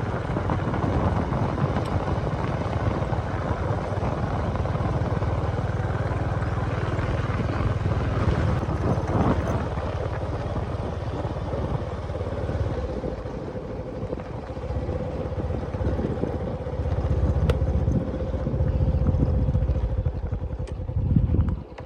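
A small vehicle engine running steadily under way, with heavy low rumble; a steady hum comes in about halfway through and holds until the sound cuts off abruptly at the end.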